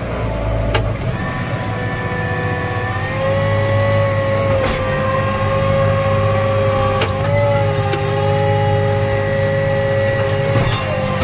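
Large farm tractor's engine working hard under heavy load, heard from inside the cab: a steady low drone with a whine over it, straining to drag a stuck disc harrow through deep mud. A few sharp clicks come through along the way.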